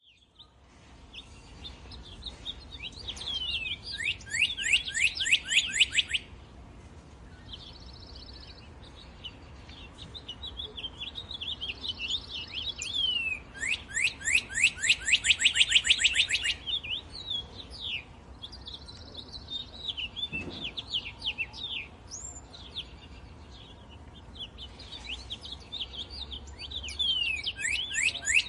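Songbirds chirping and calling, with a fast trill of many quick downward notes coming three times, about 4 s in, again near the middle and again at the end.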